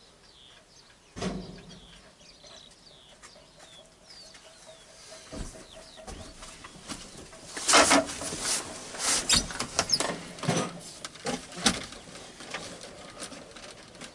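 Faint bird chirps in the first few seconds, then a series of sudden clicks, knocks and rustling noises, loudest about eight to ten seconds in.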